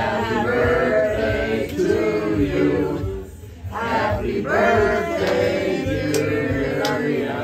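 A group of people singing a birthday song together, with a short pause about three and a half seconds in.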